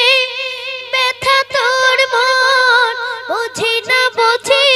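A boy singing a Bangla Islamic gojol into a hand microphone: a long held note with vibrato tapers off, then about a second in he moves into a run of short, ornamented phrases with quick breaths between them.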